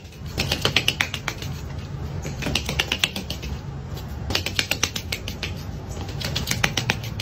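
Rapid, light tapping in about four short bursts, over a low steady hum.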